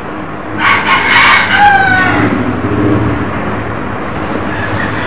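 A single loud animal call, about a second and a half long, its pitch falling at the end, over a steady low hum.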